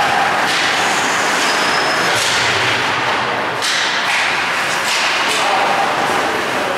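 Ice hockey play: skate blades scraping the ice and sticks and puck clacking, with a few sharp hits standing out every second or two over a steady rink hiss.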